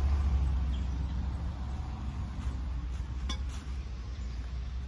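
Low steady outdoor rumble, a little louder at the start, with a few light clicks over it; the sharpest click comes about three seconds in.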